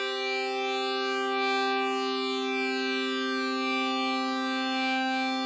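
A steady electronic alarm-like tone, buzzy and rich in overtones, held at one pitch without rising or falling.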